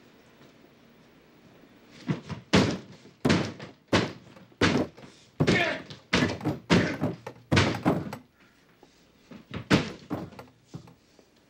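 A run of heavy thumps, about ten in six seconds, then a few lighter knocks.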